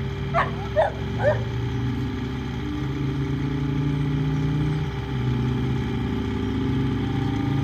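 Skid steer engine running steadily, its pitch rising and falling a little as it works. A dog barks three times near the start.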